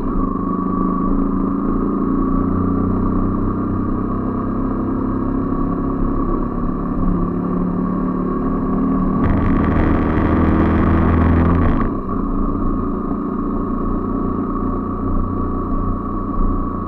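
Small motorcycle engine running while riding along at low speed. It pulls harder and louder from about nine seconds in, then its pitch drops a couple of seconds later as the throttle eases off.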